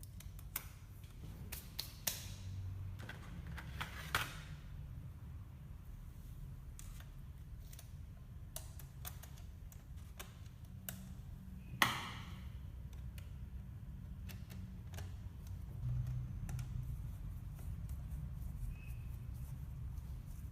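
Scattered light clicks and taps of small hard parts being handled, with a sharper click about twelve seconds in, over a steady low hum.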